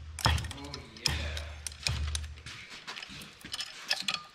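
Scattered light metallic clicks and taps of chain vise-grips and their roller chain being handled on a metal workpiece, with a low hum for a second or so in the middle.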